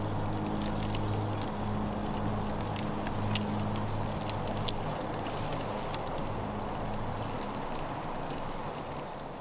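Fire crackling in an outdoor fire pit: a steady hiss with frequent sharp pops, over a low hum that drops away late on; it begins to fade near the end.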